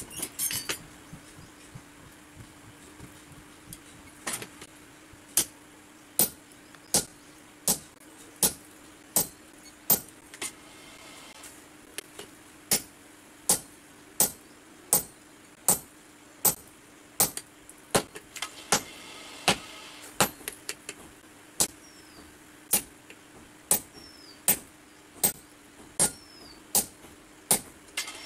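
Hand hammer striking a red-hot steel adze (basula) blade on an anvil, a steady rhythm of sharp blows a bit more than one a second, starting about four seconds in. A steady low hum runs underneath.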